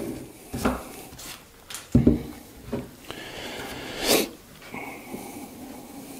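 Woodworking chisels handled on a workbench: a few scattered knocks and clicks, the loudest about two seconds in, as one chisel is laid down on the bench mat and another is picked up, with a brief scrape just after four seconds.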